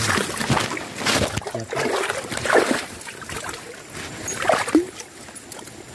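Shallow creek water splashing and sloshing in irregular bursts as hands work around a wet rock.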